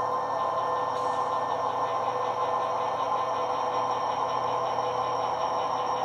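Steady diesel locomotive engine sound from the onboard sound-system speaker of an HO-scale Bowser SD40-2F model locomotive running on its track.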